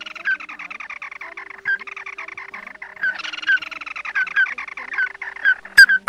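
Recorded crake calls used as a bird-trapping lure, among them ruddy-breasted crake (tí nỉ). A dense chorus of rapid chattering notes, with a few louder single notes standing out. Near the end a loud, evenly repeated call of about six notes a second starts up again.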